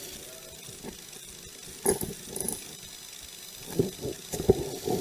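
Irregular clicks and knocks: one sharp knock about two seconds in, then a quick cluster of knocks and rattles near the end.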